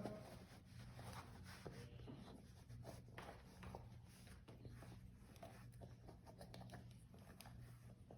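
Faint rubbing and small scattered clicks of a rubber inner tube being handled and seated into a scooter wheel half, over a steady low hum.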